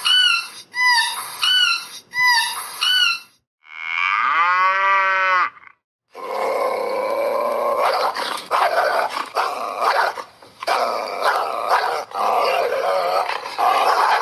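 A run of animal calls: three quick bursts of high, chirping notes, then one long call falling in pitch, then several seconds of dense, rough calling.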